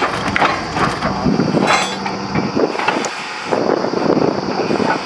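Irregular metal clanks and knocks of steel tools and drill pipe being worked at the head of a truck-mounted borewell drilling rig, with the rig's engine running underneath.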